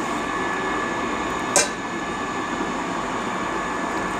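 Steady background hiss, with a single sharp click about one and a half seconds in from dishes being handled during a meal of rice and curry on a steel plate.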